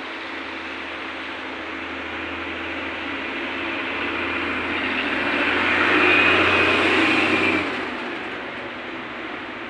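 A motor vehicle passing on a nearby road over steady background hiss. Its engine and tyre noise builds for several seconds, is loudest about six seconds in with a faint whine, then drops off sharply just before eight seconds.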